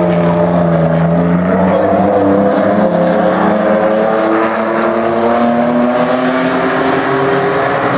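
V6 modified saloon race cars lapping a short oval, several engines running at once. Their pitch rises and falls as the cars accelerate out of the turns and ease into them.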